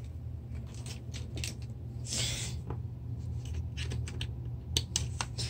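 Faint handling noises, scattered small clicks and rustles, as a plug is worked at a power strip. A low steady hum runs underneath, with a short hiss about two seconds in.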